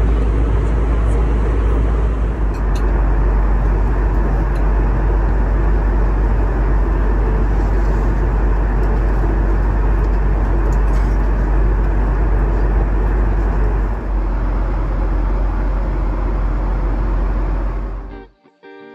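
Steady cabin noise inside an Airbus A321neo airliner: a deep, even rumble and rush of engines and airflow, which cuts off suddenly near the end.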